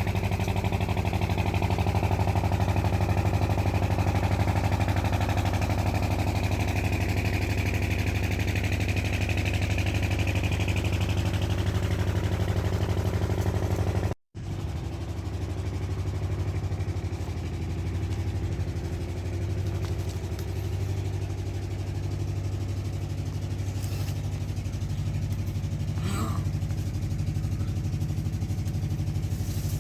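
A motor running with a steady low hum. It cuts out for an instant about halfway through, then carries on with a slow, regular pulsing.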